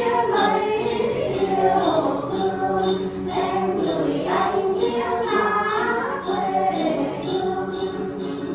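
A song sung by voices over a rhythmic jingling percussion, shaken about twice a second.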